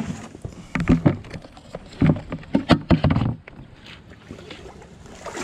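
Handling noise from a cast net being worked on a pontoon deck: a quick run of knocks and rattles for about three seconds, then quieter.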